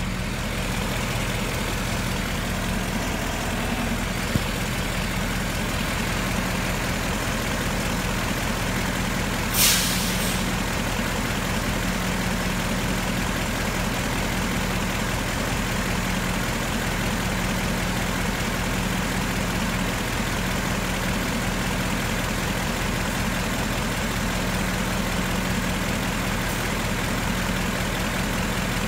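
Ford Mustang GT's 5.0-litre V8 idling steadily, a continuous low hum with an even hiss over it. A short sharp hiss about ten seconds in.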